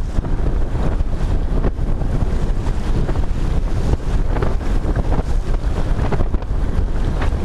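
Strong wind buffeting the microphone on the deck of a sailboat under way, a dense low rumble with brief gusty surges, over the rush of waves along the hull.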